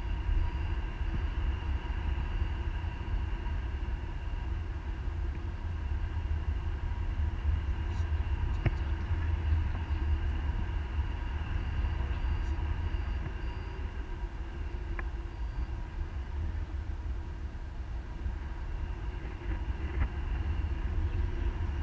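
Wind rushing over an action camera's microphone in paragliding flight: a steady low rumble and buffeting, with a few faint steady tones above it.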